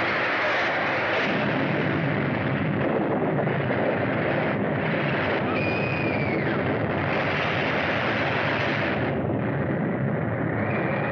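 A loud, steady rumbling noise, with a short pitched tone that bends up and back down about six seconds in.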